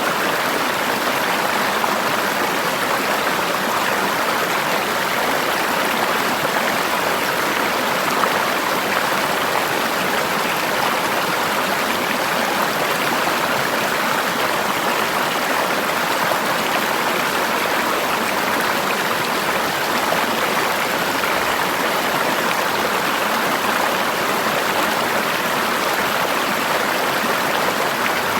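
River water flowing steadily over rocks in a forest stream: a constant rushing noise with no breaks or changes.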